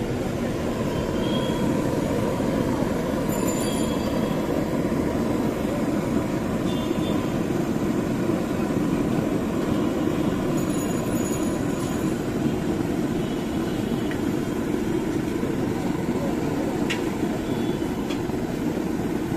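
Steady, even roar of the stove's burner under a large kadai of jalebi frying in oil, with a few faint short high tones over it.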